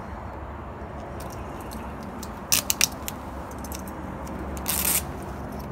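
Vinyl wrap film being handled at a car's window trim, giving a few sharp crackles and then a louder crinkling rasp near the end, over a steady low background noise.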